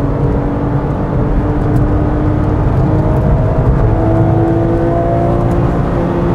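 Porsche 996 GT3's naturally aspirated 3.6-litre Mezger flat-six accelerating hard, heard from inside the cabin, its note climbing steadily over tyre and wind noise.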